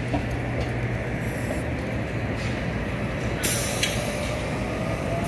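New Flyer XT60 electric trolleybus pulling away over steady street rumble, its drive giving a faint whine that rises slowly as it gathers speed. A short burst of hiss comes about three and a half seconds in.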